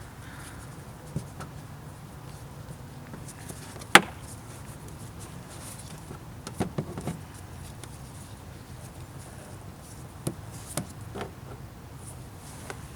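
Scattered clicks and knocks of hands working inside a car's front bumper to reach a headlight bolt, with one sharp click about four seconds in and small clusters of knocks later, over a faint steady low hum.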